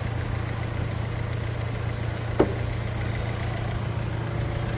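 Pulse Abarth's 1.3 turbo four-cylinder engine idling steadily with the hood open, with one short click about halfway through.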